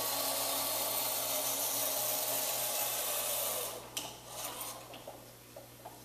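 Small electric drive motors and gearing of a student-built robot vehicle whirring steadily as it drives across a tile floor. The whirring stops about three and a half seconds in, followed by a few light clicks.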